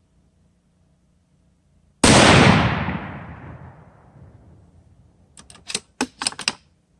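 A single rifle shot from a Savage Trophy Predator Hunter bolt-action in .243 Winchester, with a long echo trailing off over about two seconds. About three seconds later comes a quick string of sharp metallic clicks as the bolt is worked to eject the spent case.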